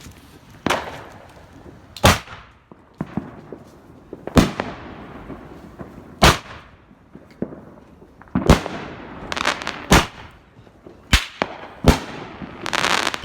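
Firehawk 'Unstoppable' consumer firework cake firing its shots one after another. Each is a sharp bang, one every one to two seconds, followed by the fading crackle and hiss of the bursting breaks, with a longer crackling stretch near the end.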